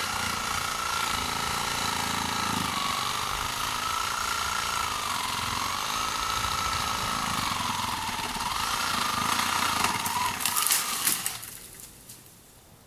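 Hand-held power saw running steadily while cutting tree limbs, its pitch wavering under load, with a few sharp crackles before it stops about eleven seconds in.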